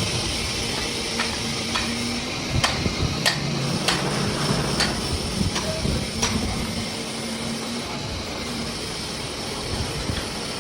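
Several sharp taps of tools on metal, irregularly spaced over the first six seconds or so, from work on a truck gearbox. Behind them runs a steady hiss and low hum of workshop noise.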